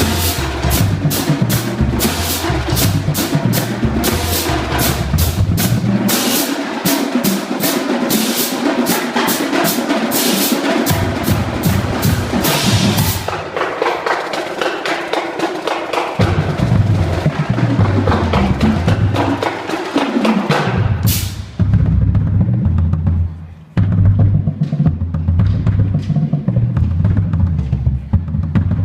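Marching band drum line playing a fast percussion feature: rapid snare strokes over pitched bass drums, with the bass drums dropping out twice in the first half. A cymbal crash comes about two-thirds of the way through, then a short break before the full line comes back in.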